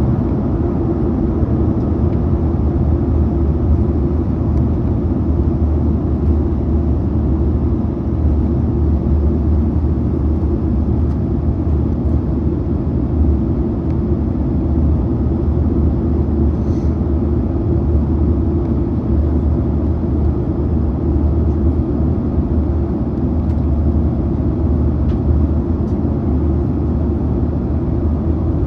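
Cabin noise inside a Boeing 737-900ER airliner in flight: a steady, loud low roar of engines and airflow.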